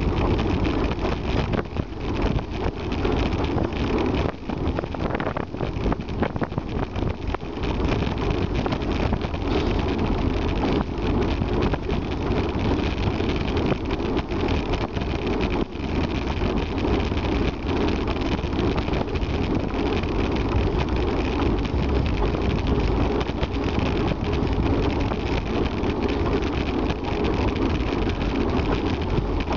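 Wind rushing over the microphone of a bicycle-mounted camera, with tyre and road rumble from riding on a tarmac lane: a steady, deep noise.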